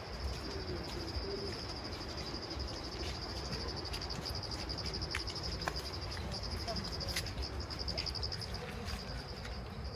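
Crickets trilling steadily in a high, finely pulsing chorus, over a low rumble.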